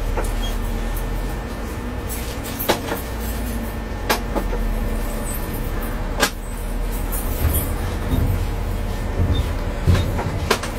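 DSB IC3 diesel multiple unit's engine running steadily as the train rolls slowly forward, heard from inside the driver's cab. A handful of sharp knocks come at uneven intervals as the wheels cross rail joints, with a deeper rumble building for a couple of seconds near the end.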